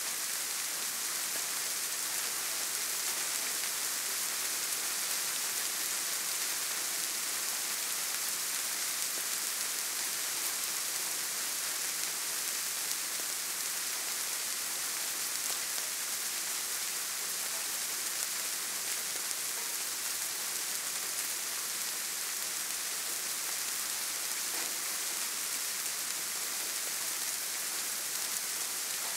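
Steady soft rain falling, an even hiss with faint scattered drop ticks.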